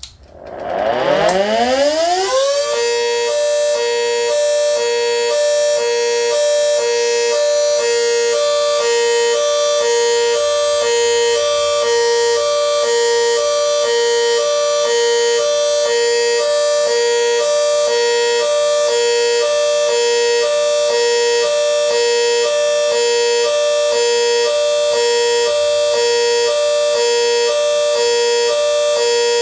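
GS CS-10V15QT siren winding up in a rising wail over about two seconds, then sounding its hi-lo signal, a loud tone switching between two pitches over and over. The siren has bad bearings.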